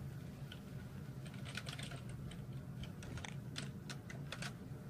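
Faint, irregular clicking of keys pressed on a computer keyboard.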